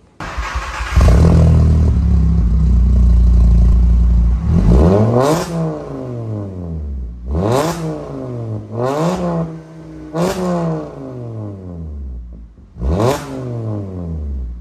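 Volkswagen Bora (Jetta Mk5) with a Magnaflow exhaust, heard at the tailpipe: the engine fires up about a second in and holds a steady fast idle. It is then revved five times, each rev rising and falling back to idle.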